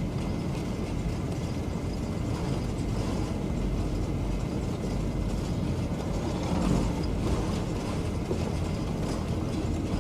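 Vehicle driving along a road: steady engine and road noise heard from inside the cab, with a constant rattling of loose parts.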